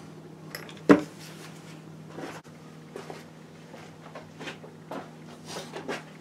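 Workshop handling noises: a sharp knock about a second in, then scattered light knocks and shuffles as a person moves about and handles objects such as a wooden board, over a steady low hum.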